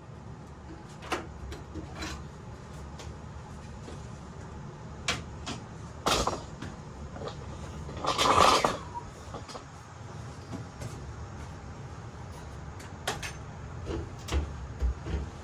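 Scattered clicks and knocks of things being handled, with a louder scraping rush about eight seconds in, over a steady low hum.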